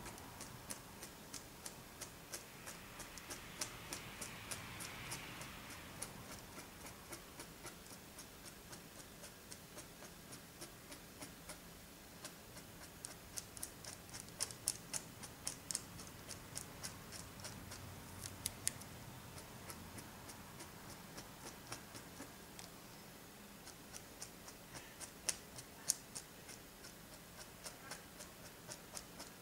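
Quiet room tone with a steady, faint ticking, about two ticks a second.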